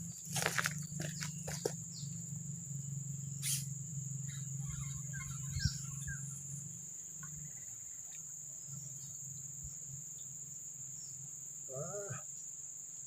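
Steady high-pitched drone of insects chirring. A low hum fades out about halfway through, a few clicks come in the first seconds, and a short pitched sound comes near the end.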